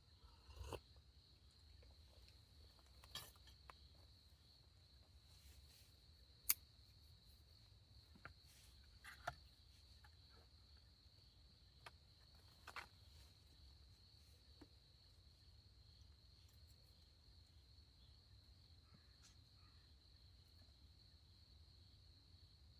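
Night insects, crickets by their sound, trilling steadily and faintly at one high pitch. A few scattered short clicks and snaps break in, the sharpest about six and a half seconds in.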